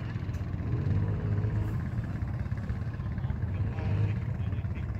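Honda 4x4 ATV engine running under load as it wades through deep water, a steady low drone, the revs rising briefly about a second in and again near the end.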